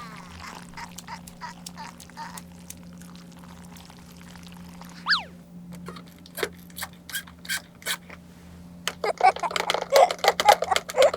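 Small plastic toy pieces being handled, with scattered clicks and taps that become a dense run of clicking near the end. A brief falling squeak sounds about five seconds in.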